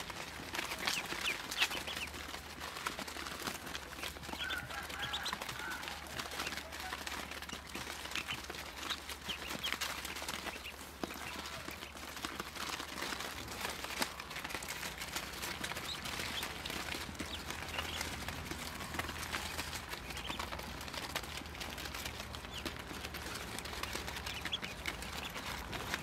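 A brood of Muscovy ducklings peeping, many short high peeps overlapping one another.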